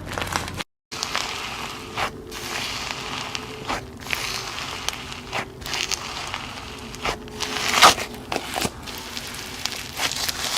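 Slime being squished, pressed and stretched by hand, with dense crackling and sharp pops as air pockets burst. There is a brief silent gap just under a second in.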